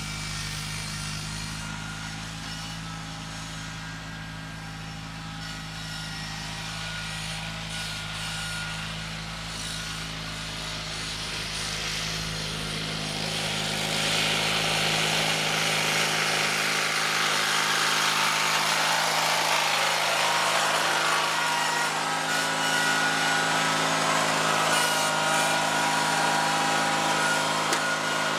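John Deere 316 garden tractor's engine running steadily under load as it pulls a Brinly moldboard plow through the soil, growing louder about halfway through as it comes close.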